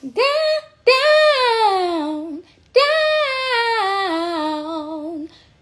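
A woman singing without accompaniment: a short note, then two long notes that each start high and slide steadily down in pitch, ending in a wavering vibrato.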